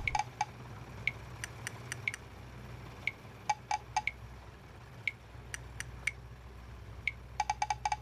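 Sparse background music: short, high plinking chime-like notes at irregular intervals, with a quick run of several near the end, over a low steady drone.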